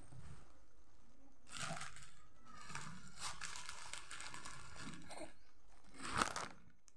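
Plastic shopping bags rustling and crinkling as clothes are pulled out of them, in several bursts, the loudest a short sharp crackle about six seconds in.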